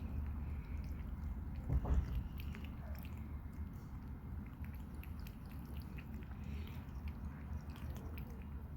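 A cat lapping water, a steady run of small wet clicking laps, with a soft knock about two seconds in.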